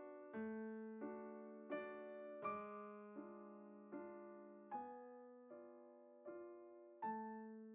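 Quiet background music: a soft piano-like keyboard playing slow chords, a new one struck about every three quarters of a second and left to fade.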